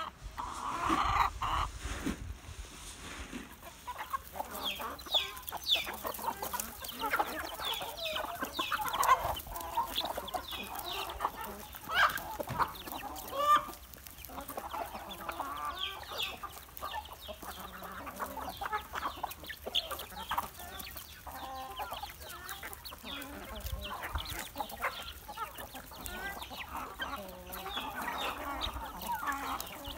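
Chickens clucking: many short, overlapping calls that go on irregularly, a few of them louder.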